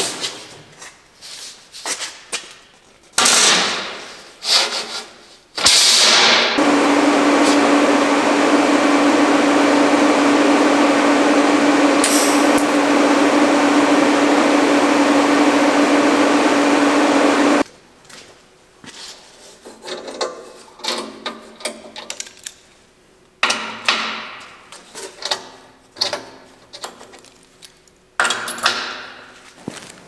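Steel parts and clamps clanking and ringing against a steel fixture table, with several sharp metallic knocks. In the middle a welding arc runs for about twelve seconds as a continuous hiss with a steady hum, starting and stopping abruptly, followed by more clanking.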